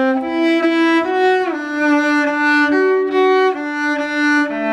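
Solo cello, bowed, playing a slow phrase of sustained single notes in A minor. About a second and a half in, one note slides down into the next as the hand shifts position.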